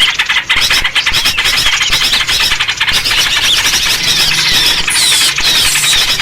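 A dense, noisy chorus of many small birds chirping and chattering together without a break, with quick sweeping whistled notes from about four seconds in. This is a bird-lure call recording used to draw small birds in.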